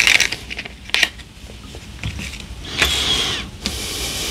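Rustling and crinkling of a small plastic parts bag being handled as the steel Belleville washers inside are tipped out into a palm, with a sharp click about a second in.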